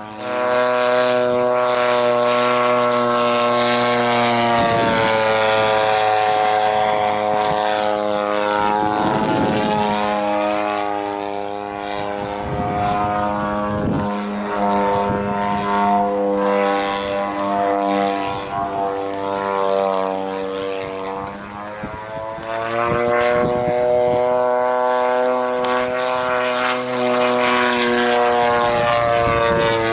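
Engine and propeller of a 1/3 scale Piper Super Cub model airplane in flight, a steady loud drone whose pitch keeps shifting up and down as it throttles and manoeuvres. It grows fainter for a stretch in the middle and comes back loud near the end.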